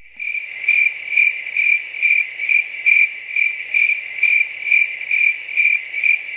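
Cricket chirping: a high, even chirp repeating about twice a second, starting abruptly. It is a 'crickets' sound effect for an awkward silence.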